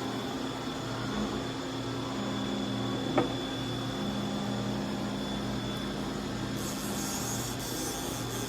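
Steady hum of machine-shop machinery, with a single sharp click about three seconds in and a burst of high hiss near the end.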